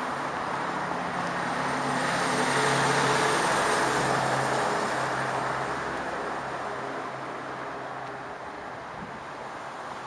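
A bus engine drives past, growing louder to its peak about three seconds in and then slowly fading away, with a low engine tone under the road noise.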